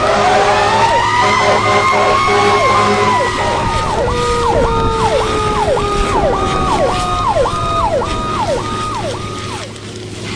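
Emergency vehicle sirens: one wail slowly rising and then falling in pitch, layered with a yelp siren sweeping up and down about twice a second, over a steady low hum. The sirens fade out near the end.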